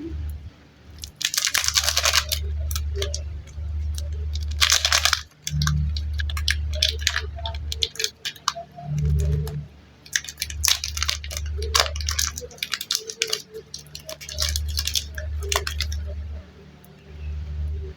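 Thin plastic packaging crinkling and tearing in irregular bursts, the longest about a second in and again near five seconds, over a low rumble of handling noise.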